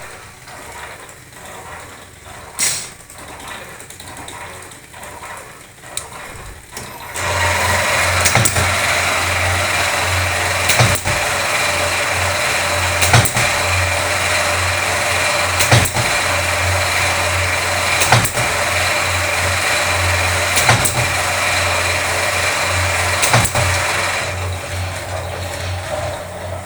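Automatic machine for making artificial Christmas tree branches, starting up about seven seconds in and running with a steady hum, with a sharp stamp stroke about every two and a half seconds. It eases off near the end.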